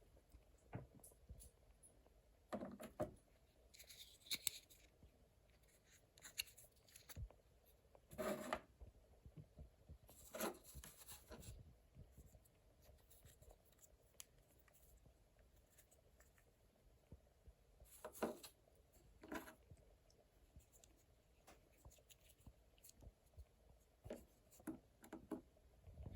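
Near silence broken by a few brief scrapes and rubs of a small toy being handled, spread out over the stretch.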